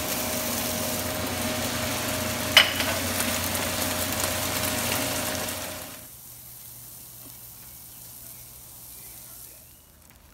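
Chopped peppers and cherry tomatoes sizzling in a frying pan as they are stirred with a wooden spoon, with one sharp knock about two and a half seconds in. The sizzle cuts off about six seconds in, leaving only a much quieter background.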